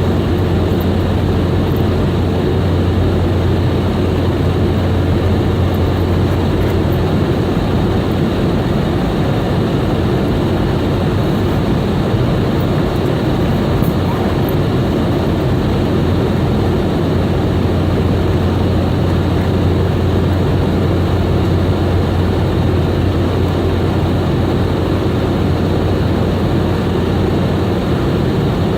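Boeing 717's twin rear-mounted Rolls-Royce BR715 jet engines running steadily, heard inside the cabin as a loud, even drone with a low hum under it.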